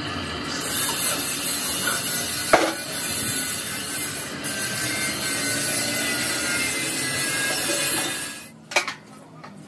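A steel tractor front blade is turned over and set down on wooden blocks, with one sharp metal clang about two and a half seconds in. A steady machine noise runs underneath and stops shortly before the end, and a few light knocks follow.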